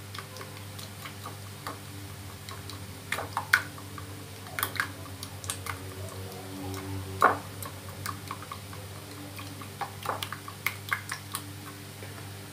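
A plastic spoon stirring beaten eggs in a ceramic bowl, clicking against the bowl's sides in irregular light ticks, over a steady low background hum.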